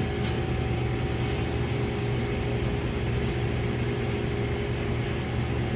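Steady low mechanical hum, even throughout, with a few constant low tones in it.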